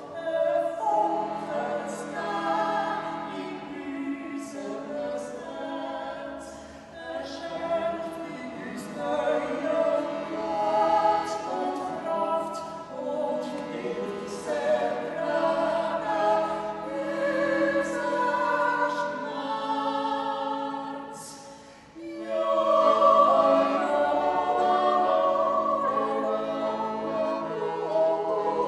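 Swiss yodel duet: a woman and a man singing a Jodellied together, with piano accordion accompaniment. There is a brief break in the phrase a little over three quarters of the way through, after which the singing comes back louder.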